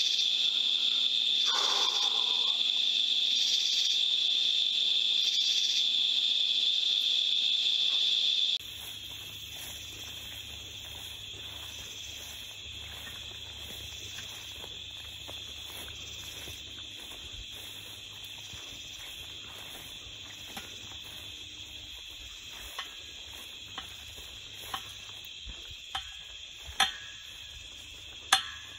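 Night insect chorus of crickets: a steady high trill with a slower pulsing layer above it. About eight seconds in, the chorus drops suddenly to a quieter level over a low handling rumble, and near the end there are sharp ticks about once a second, like footsteps in grass.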